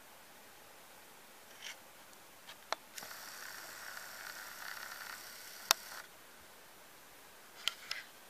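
Camcorder zoom motor whining faintly for about three seconds, starting about three seconds in, as the shot pulls back. A few short sharp clicks and taps fall around it, the loudest one shortly before the whine stops.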